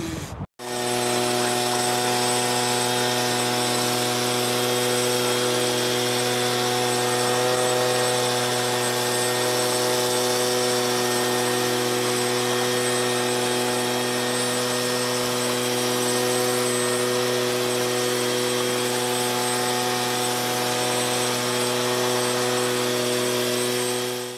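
Leaf blower running steadily at one unchanging pitch, blowing broken sheets of ice off paving slabs. It starts about half a second in and cuts off suddenly just before the end.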